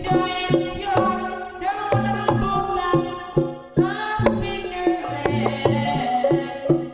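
Live Javanese lengger accompaniment: a run of struck, pitched percussion over hand-drum strokes, with a female sinden singing in a few long, wavering phrases.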